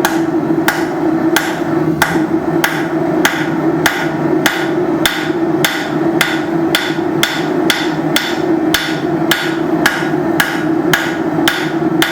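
Rounding hammer striking hot steel on an anvil in an even beat of about two and a half blows a second, thinning and spreading the taper of a forged banister hook, over a steady hum.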